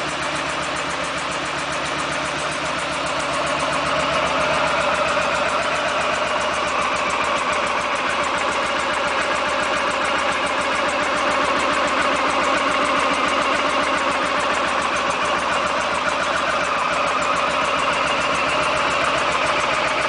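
Honda ST1100's V4 engine idling steadily with a fast, even beat. It gets a little louder about four seconds in. The owner takes the engine to have a leaking exhaust valve.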